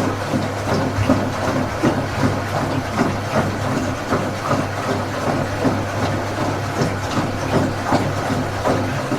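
Washing machine running: a steady low motor hum with a rhythmic pulsing swish a couple of times a second as the drum turns.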